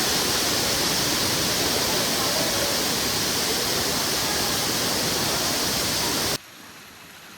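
Waterfall rushing loud and steady close to the microphone; about six seconds in it cuts off abruptly to a faint hiss.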